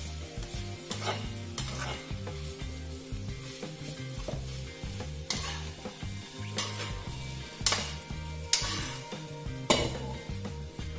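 Fried rice with bean sprouts sizzling in a coated wok as a metal spatula scrapes and turns it over. Sharper scrapes of the spatula against the pan come about once a second in the second half.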